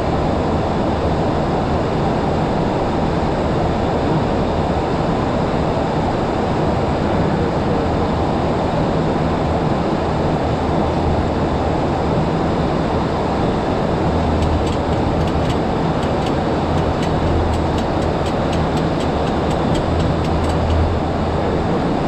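Steady flight-deck noise of a Boeing 737-800 in flight: a dense rush of airflow around the cockpit with a low engine hum underneath. In the last third a run of faint, quick ticks sits on top.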